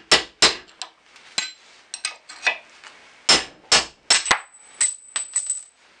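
Hammer striking a cold chisel used as a drift, driving the rest of a steel pin out of a cast steel 1967 Mustang lower door hinge held in a vise. About a dozen sharp metal strikes at an uneven pace. The later strikes leave a high ring.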